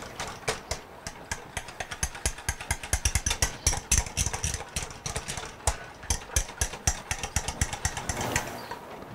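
Wire whisk rapidly clicking and scraping against the sides and bottom of a metal saucepan as a thin milk-and-egg pudding mixture is whisked while it heats, to keep it from getting lumpy. The clicks come several a second, unevenly.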